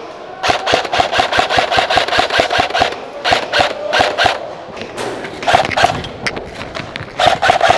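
Airsoft electric rifle (AEG) firing on full auto in bursts: a long burst of about two and a half seconds, then three shorter bursts, rapid sharp shots with a steady whine under them.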